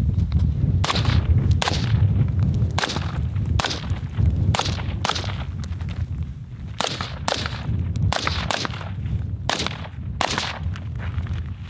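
Short-barrelled AR-15-style rifle (Type A 12.5-inch Contractor) firing about fifteen single shots in irregular pairs and singles as the shooter moves between targets. The shots come fastest in the second half, over a steady low rumble.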